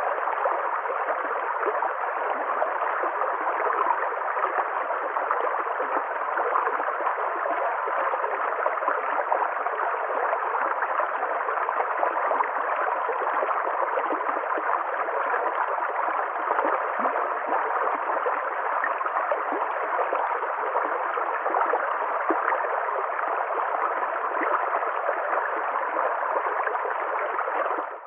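Flowing stream water, a steady, even rush with gurgling.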